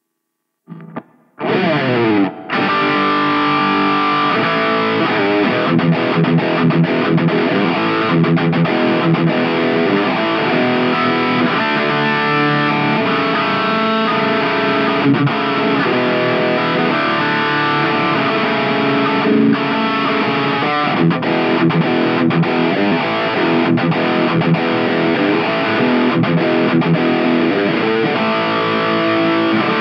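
Yamaha Pacifica electric guitar played through a Line 6 POD GO on an overdriven drive preset. After a brief silence and a short opening note, it plays a continuous run of distorted chords and riffs.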